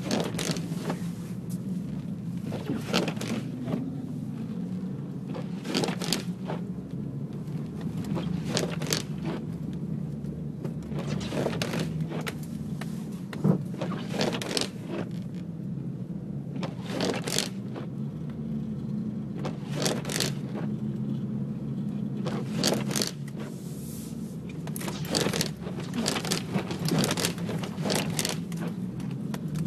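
Pickup truck on Sno Trex snow tracks driving through deep snow, its engine running steadily under load, with frequent irregular scrapes and knocks as snow hits the body and the truck jolts.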